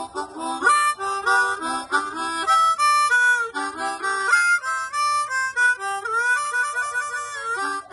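Hohner Blues Harp ten-hole diatonic harmonica played with cupped hands: a quick melody of short notes and chords, with some notes sliding in pitch.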